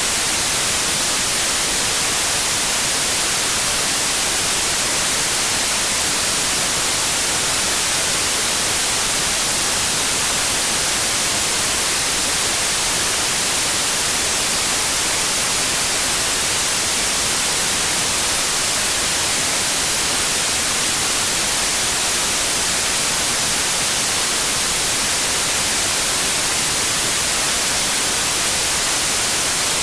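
Steady, unbroken white noise: an even hiss across all pitches, brightest at the top, without change.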